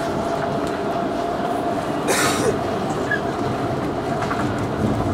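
Copenhagen S-train heard from inside the carriage running through the tunnel: a steady rumble of wheels on the track under a constant whine, with a short hiss about two seconds in.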